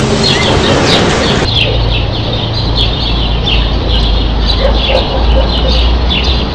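Many birds chirping in quick, short repeated calls over a low, steady rumble; the sound changes abruptly about a second and a half in, after which the rumble is the loudest part.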